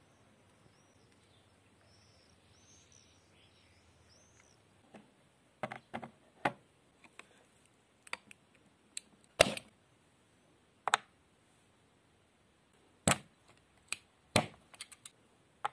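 Utility knife blade chopping through a wax stick on a board: a run of sharp, separate clicks and knocks starting about a third of the way in, the loudest a little past halfway. A few faint bird chirps come before them.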